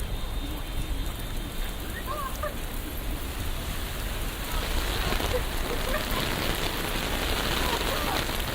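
Steady rain falling on a city street, an even hiss that grows a little louder about five seconds in.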